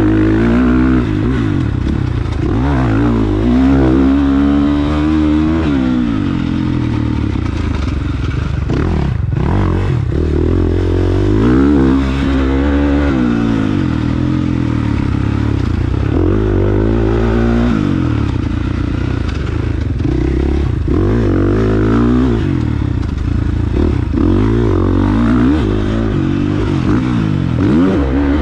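450cc four-stroke motocross bike engine, heard from on board, revving up and dropping back again and again as the rider accelerates, shifts and backs off around the track.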